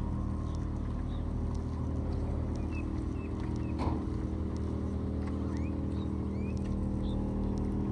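A vehicle engine idling steadily with an even low hum, and a single short knock about four seconds in.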